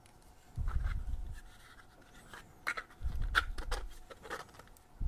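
3D-printed plastic fan-duct parts handled and fitted together: a few sharp plastic clicks and knocks in the second half, with low rumbling handling noise twice.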